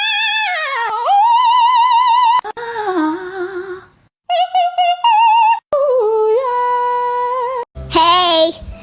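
High, sung-sounding voice in several abruptly cut pieces: long held notes that waver and slide in pitch, ending with a shorter call that rises and falls.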